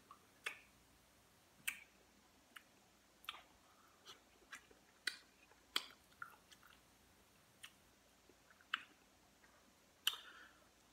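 Quiet eating sounds: about a dozen irregular sharp clicks of chewing and mouth smacks, with a short soft crackle near the end as a boiled shrimp's shell is peeled.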